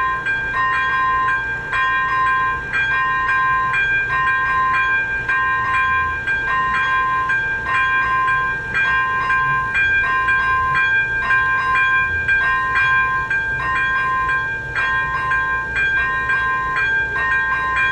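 Electronic warning bell of an AŽD 97 railway level crossing, ringing in an even, repeating ding about three strokes every two seconds. It signals that the crossing is closed for an approaching train.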